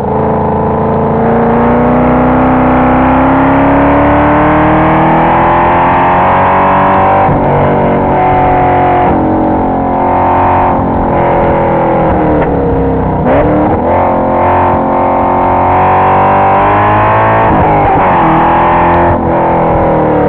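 2005 Cadillac CTS-V's V8 engine heard loud inside the cabin on a race track. Its pitch climbs steadily under acceleration, drops sharply about seven seconds in as it shifts up, dips low again around thirteen seconds, then climbs once more.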